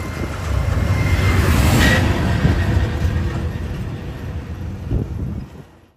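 Loud low rumble and rushing road noise of a moving vehicle on an unpaved road, fading out just before the end.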